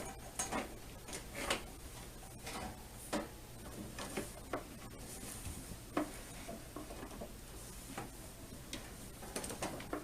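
Rummaging: irregular light clicks, taps and knocks of small objects being picked up and moved about.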